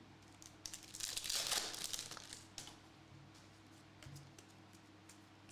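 Plastic wrapper of a Hoops basketball card pack crinkling as it is handled and opened, loudest for about a second and a half starting about a second in, with a few faint clicks.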